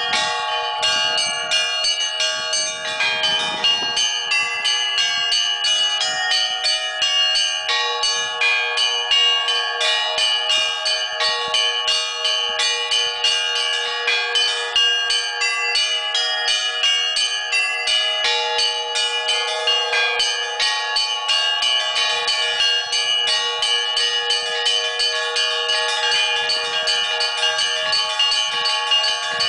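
Russian church bells of the Kizhi belfry rung in a continuous zvon: a fast, unbroken pattern of strikes on several bells, the small high bells struck rapidly over the steady ringing of larger ones.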